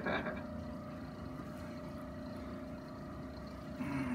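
A steady low mechanical hum with a faint even whine, and a short voice-like murmur near the end.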